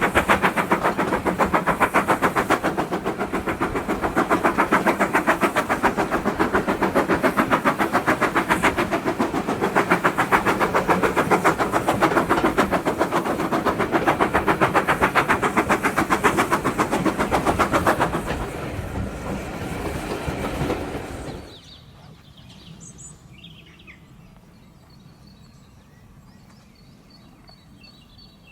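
Steam locomotive No. 9351, a 2-6-0 Mogul, working hard with a fast, even exhaust beat. The sound eases a little near the end, then drops away suddenly, leaving quiet with faint birdsong.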